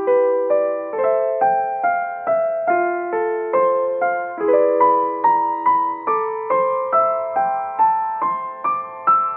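Background piano music: a gentle melody of plucked-sounding notes, about two to three a second, each fading away.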